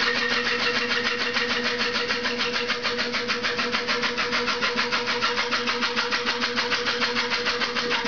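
Brand-new front-loading washing machine squealing steadily while it runs, with a rapid, even rubbing pulse. The squeal comes from a block of Styrofoam packing material lodged under the machine and rubbing against the drum.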